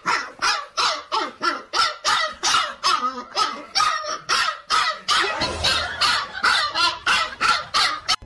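A dog barking over and over in quick, even succession, about three barks a second, without a break.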